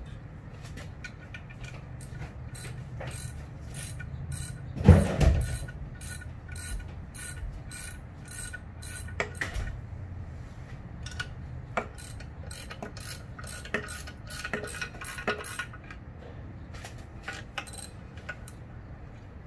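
Hand socket ratchet clicking in short runs as bolts are turned, with one louder knock about five seconds in.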